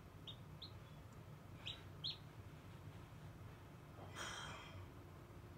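A hatching chick peeping faintly inside the incubator: two soft short peeps, then two louder ones about two seconds in. A brief rasping noise follows near the end, over a low steady hum.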